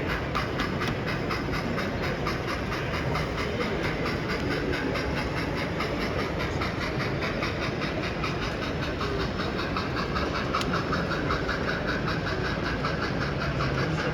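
Model train running on an exhibition layout, its wheels clicking steadily and rhythmically over the track against a continuous hall background noise.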